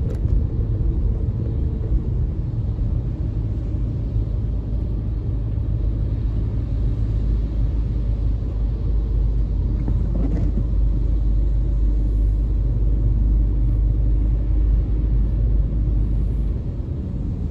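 Steady low rumble of a car on the move, heard from inside the cabin: engine and tyres on a wet road. It swells in the middle and eases a little near the end.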